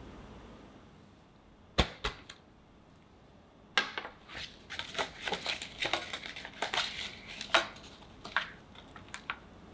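A sharp knock and two lighter taps about two seconds in, then parchment paper crinkling and rustling as it is pressed in to line a square stainless steel mold.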